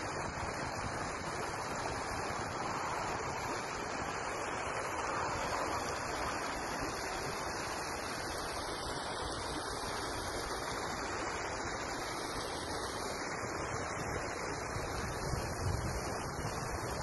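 Steady rushing of a shallow rocky mountain stream, with wind buffeting the microphone and a few low gusts near the end.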